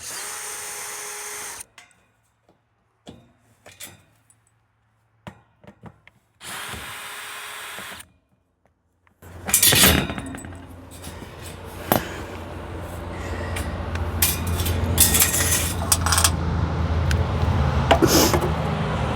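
Power drill whirring in two short steady runs, backing out the screws of an RV refrigerator access panel, with small clicks and knocks between them. These give way after about nine seconds to a longer stretch of louder rattling and handling noise.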